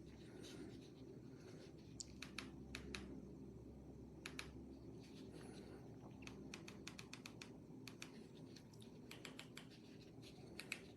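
Faint, irregular small clicks, some in quick clusters, over a low steady hum: near silence.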